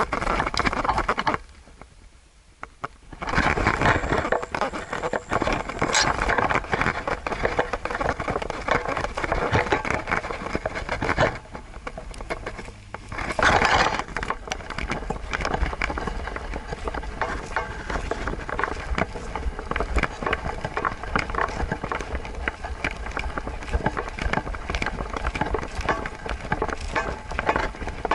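Rubbing, jostling noise from an action camera strapped to a walking Siberian husky's back, with the patter of its paws on the trail. It drops much quieter for about two seconds shortly after the start.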